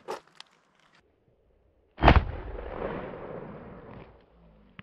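A single shot from a Rock Island Armory 20-gauge shotgun firing Winchester Super X #3 buckshot, about two seconds in, loud and sudden, its echo dying away over the next two seconds.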